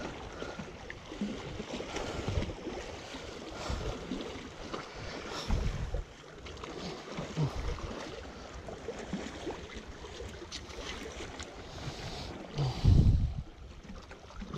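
Wind gusting across the microphone over sea water lapping on shore rocks, with a heavy gust of low buffeting near the end.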